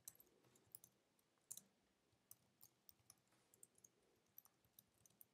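Faint, irregular clicking of computer keyboard keys being typed, a few keystrokes a second with uneven gaps.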